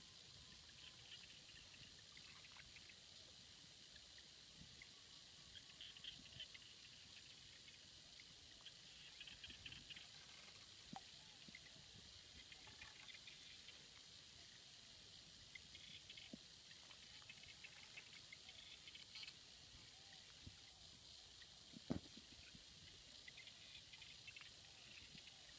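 Near silence: a faint steady hiss with scattered soft crackles and one sharper click near the end.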